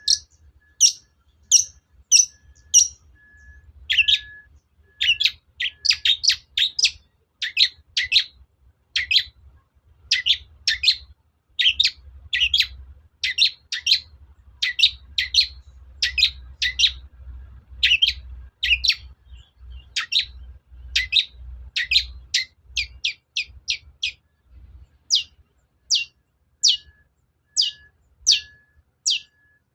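Long-tailed shrike (cendet) song: a long run of short, sharp notes, quick and crowded through the middle and spaced further apart near the end. It is a lure recording for provoking caged shrikes into singing.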